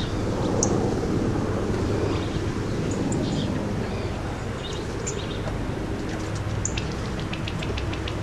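California quail feeding close by: scattered short, high clicks and notes, with a quick run of ticks near the end, over a steady low rumble.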